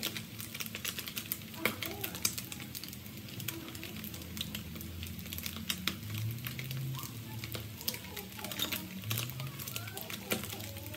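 Fish frying in hot oil in a pan: a steady sizzle with frequent, irregular crackling pops of spattering oil.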